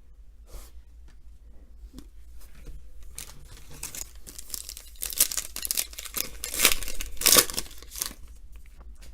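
A foil trading-card pack being torn open and its wrapper crinkled, starting quietly with a few light clicks and growing into a loud crackling about halfway through before dying down near the end.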